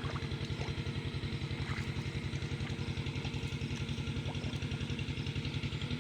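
Small engine running steadily at a constant speed with a fast, even chugging beat.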